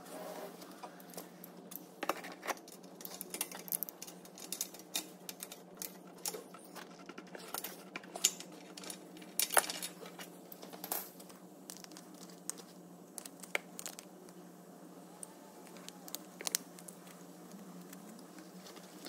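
Irregular metallic clicks and clinks of a socket ratchet and spanner tightening a new NOx sensor into a diesel exhaust, thickest in the first half and sparser later, over a steady low hum.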